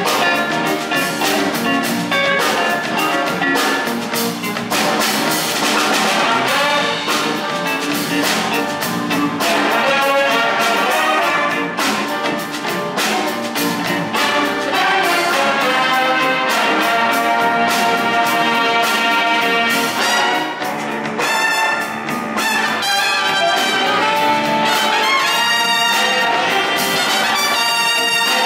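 A big jazz band playing a funk tune live: saxophones, trumpets and trombones over a steady drum beat.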